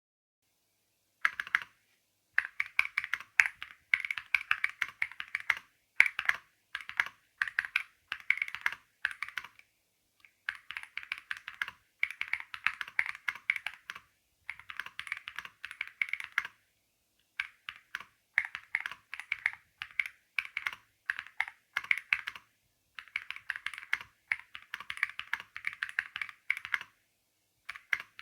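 Typing on an Ajazz AK820 Pro mechanical keyboard: quick runs of keystrokes in bursts of a few seconds, separated by short pauses, starting about a second in.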